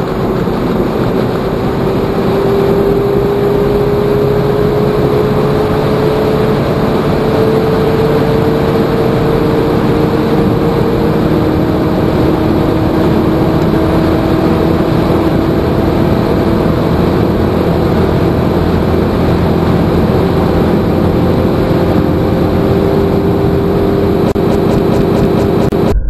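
Car accelerating steadily at high speed, heard from inside the cabin: the engine note rises slowly and evenly over a constant rush of wind and tyre noise.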